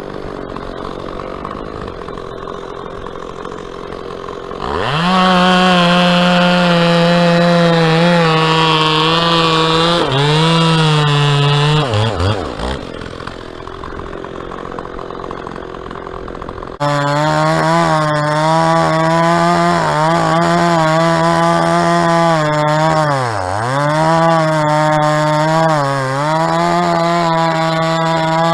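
Two-stroke chainsaw idling, then revving to full throttle for several seconds, its pitch dipping a few times. It drops back to idle, then suddenly runs at full throttle again to the end, with another deep dip in pitch midway.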